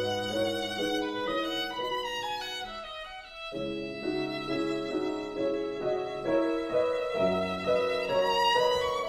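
Background music: a violin playing a melody over sustained lower notes.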